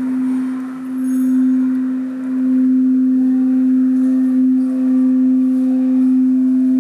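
Large singing bowl played by circling a mallet around its rim, giving one unbroken low hum with faint higher overtones that swells and dips slowly.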